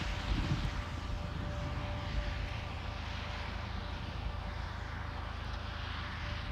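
Strong, steady wind rushing past the microphone with a low rumble, and a faint steady hum underneath.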